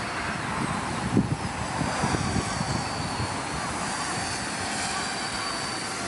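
Parrot Bebop quadcopter drone in flight: a steady whine from its propellers, with gusts of wind rumbling on the microphone.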